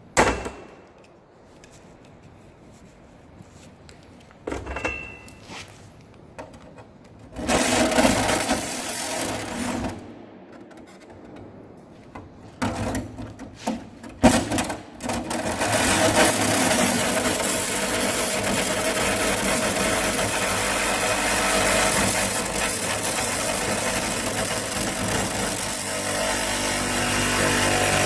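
Reciprocating saw (Sawzall) cutting into the steel of an old safe: it starts and stops in short bursts, then runs steadily through the last twelve seconds or so. A sharp knock sounds right at the start.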